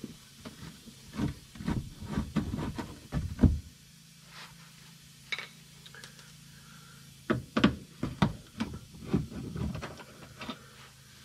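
Scattered clicks and knocks of a Phillips screwdriver and hands working screws out of a Nissan Frontier's plastic wheel-well liner, in two bursts with a quieter pause of a few seconds between.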